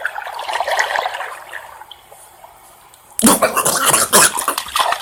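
Swimming-pool water splashing as a puppy is put in and thrashes. There is a softer rush first, then loud, choppy splashing from about three seconds in.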